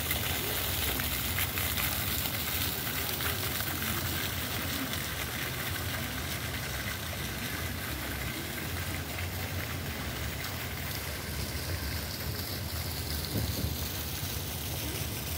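Park fountain's single vertical jet splashing steadily into its round basin, a continuous hissing patter of falling water that grows a little fainter near the end.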